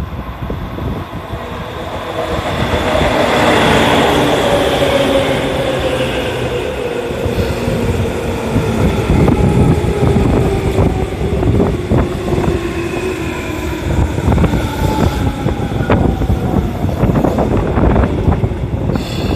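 Tobu 9000 series electric train arriving and braking: its motor whine falls steadily in pitch as it slows, over the clatter of wheels running across rail joints.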